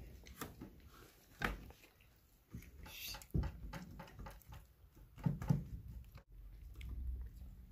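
Scattered light taps, scuffs and rustles from kittens scrabbling about and pawing at a person's leg for meat.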